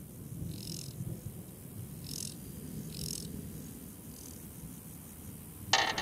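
Woodland ambience: a low steady rumble with four short, high insect chirps spaced through it. Just before the end a sudden loud mechanical rattle cuts in.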